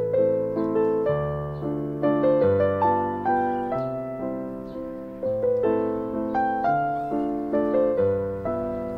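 Background piano music: a melody of struck notes, each fading after it is played, over lower held notes.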